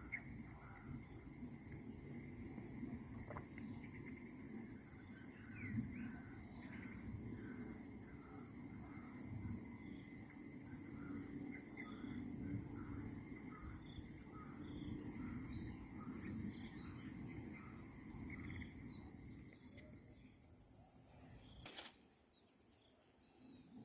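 Insects, crickets or cicadas, shrilling steadily over a low rushing of river water, with a small animal's short call repeating a little more than once a second. All of it cuts off suddenly near the end, leaving near quiet.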